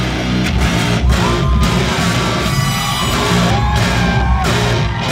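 Live rock band playing loud through the venue PA: drums, bass and distorted guitar in an instrumental passage, with a few sliding pitched lines over the top, heard from the crowd at the front of the stage.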